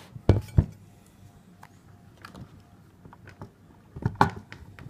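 Parts of a Tesla Wall Connector's casing being handled and set against each other: two sharp knocks just after the start, scattered light clicks, and another knock about four seconds in.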